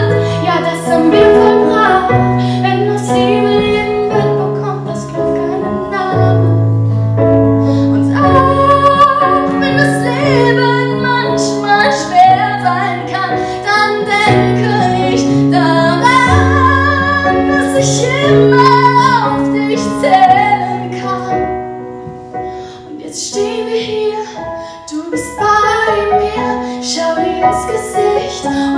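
A woman singing a slow song in German into a microphone, with long held notes, over a piano accompaniment.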